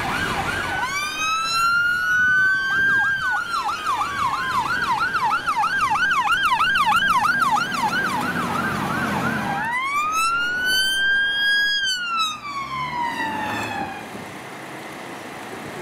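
UK emergency vehicles' electronic sirens: a fast yelp, then a wail that rises and slowly falls while a yelp sweeps about three times a second, then one more wail that rises and falls away about fourteen seconds in. After that a vehicle engine idles more quietly.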